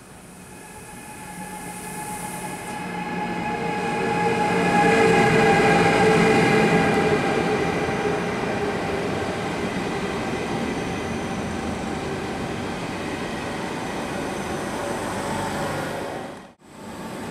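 ÖBB Railjet train led by a Class 1216 Taurus electric locomotive running into the station. It grows louder to a peak about five seconds in and then holds steady as the coaches roll past, with a steady high whine of several tones over the rumble. The sound cuts out sharply for a moment near the end.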